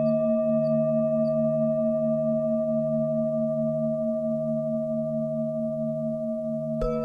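Tibetan singing bowls ringing on after a strike, several steady tones held together with the low ones pulsing slowly. Near the end another bowl is struck and its higher tones join in.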